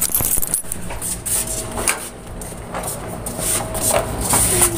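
Rubbing and scraping noise with a few short knocks, as of a phone being handled or moved while its lens is covered.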